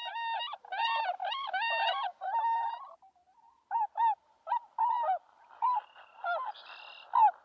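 Swans calling: a run of repeated honk-like calls. Longer calls come one after another in the first three seconds, then shorter, spaced calls follow.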